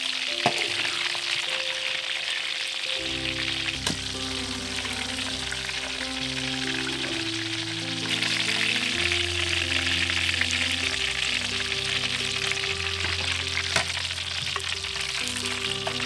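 Hot oil sizzling steadily in a steel wok as fish-ball rolls wrapped with long beans deep-fry, with a few sharp clicks of a metal spatula or skimmer against the wok. Background music with a bass line comes in about three seconds in.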